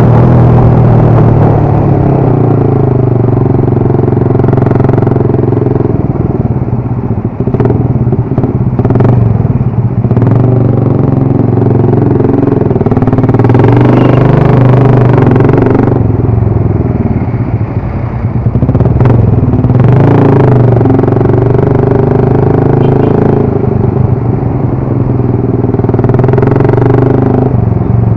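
Motorcycle engine running while riding, its pitch holding steady then shifting a little up and down. Short bursts of clatter come about a quarter of the way in and again about two-thirds through.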